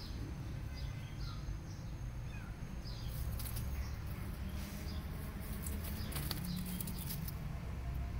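Outdoor garden ambience: small birds chirping now and then over a low wind rumble on the microphone, with a stretch of crackly rustling in the middle.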